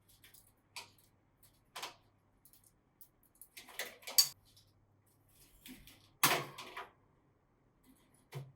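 Irregular pecking taps, clicks and crinkles of paper as budgerigars work at a paper foraging toy, with two louder rustles about four and six seconds in.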